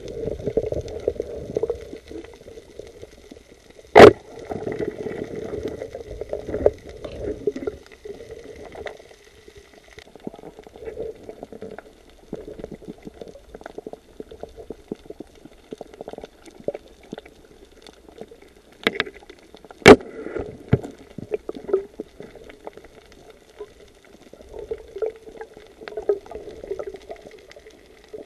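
Underwater sound picked up through a camera housing: an uneven water gurgle and bubbling, with sharp loud knocks about 4 s in and again twice near 19–20 s.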